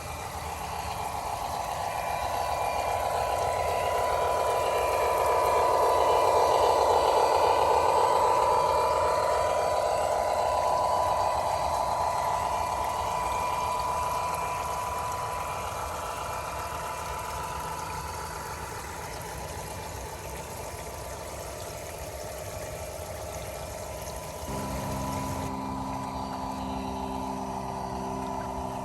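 Model train locomotive's engine sound running steadily, swelling louder over the first several seconds, then fading as it moves away. A different steady hum comes in near the end.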